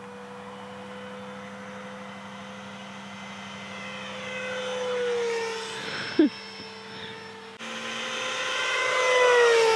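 Radio-controlled model jet's motor whining overhead in flight, swelling and dropping in pitch as it passes by twice. A brief thump about six seconds in.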